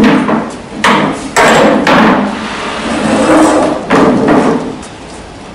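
Plastic school chairs being moved on a hard stage floor: a series of loud knocks and thuds, about five, with scraping between them, ending about a second before the close.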